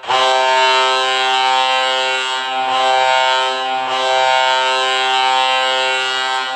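Colorado Avalanche hockey goal horn blowing one long, steady, low-pitched blast.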